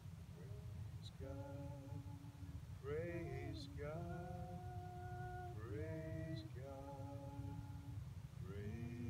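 A few voices singing slowly and unaccompanied, in long held notes that scoop up into pitch, over a low steady rumble.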